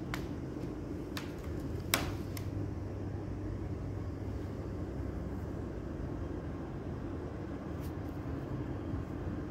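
A steady low mechanical hum, with a few short sharp clicks: several in the first two and a half seconds, the loudest about two seconds in, and one more near the end.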